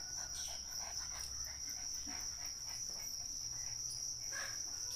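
A cricket trilling steadily at one high pitch, with faint scattered small clicks and rustles beneath it.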